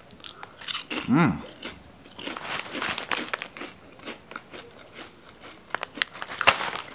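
Crunchy protein chips, thin and cracker-like, being bitten and chewed close to the mouth: a run of crisp crunches, with a short vocal sound about a second in and the sharpest crunch near the end.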